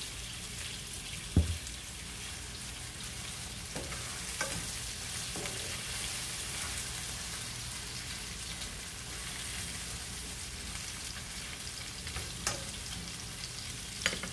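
Sliced onions frying in hot oil in a nonstick pan: a steady sizzle while they cook toward reddish-brown. One sharp knock comes about a second in, and a few lighter clicks follow as they are stirred.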